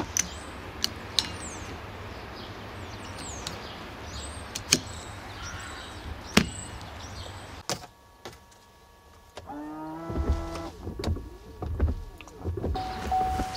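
Sharp plastic clicks as a Chevrolet Volt wiper blade is handled and clicked into place on its arm, with birds chirping behind. About eight seconds in the sound changes to the car's windshield wiper motor running, with low thumps as the wipers sweep.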